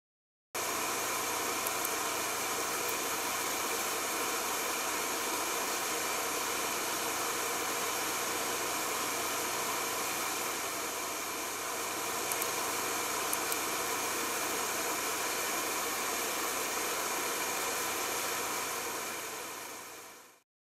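Laser engraving machine running: a steady, even fan-like noise over a low hum, with a few faint ticks. It cuts in abruptly about half a second in and fades out near the end.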